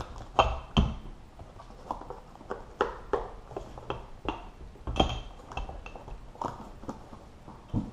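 Wilwood brake pads and their cardboard boxes being handled on a table: irregular clicks, taps and knocks as pads are set into a box and the box is closed, with a sharper knock about five seconds in.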